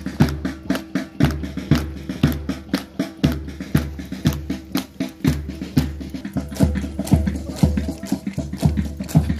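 Music with a steady drum beat, about two beats a second, with sharp percussive clicks between the beats over sustained notes.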